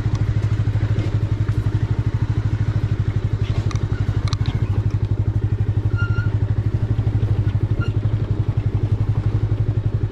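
Bajaj Avenger 180's single-cylinder engine running steadily at low road speed, a deep, even, rapid pulse. A few light rattles and clicks come about four seconds in.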